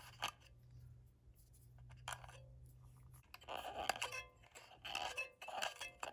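Scraping and rubbing inside a Sharp EL-122 calculator's battery compartment as loose debris is cleaned out, in short irregular scratchy strokes starting about three seconds in.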